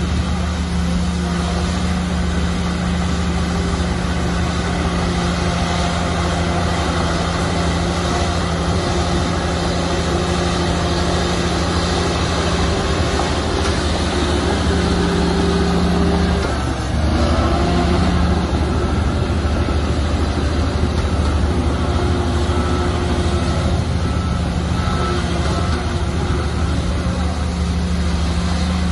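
Shantui bulldozer's diesel engine running steadily under load, with a brief drop in its note about 17 seconds in before it comes back up.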